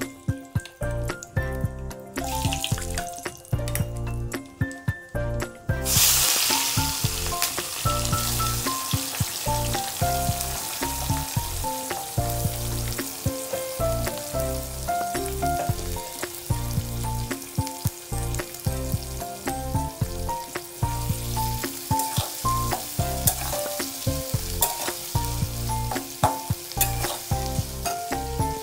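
Sliced onions frying in hot oil in an aluminium kadai: a loud sizzle starts suddenly about six seconds in, and a steel spatula clicks and scrapes against the pan as they are stirred. Background music with a melody and bass plays throughout.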